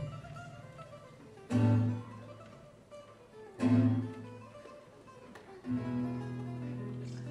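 Live acoustic band music led by acoustic guitar: two loud low chords about two seconds apart, each ringing out, then a steady low note held from about six seconds in.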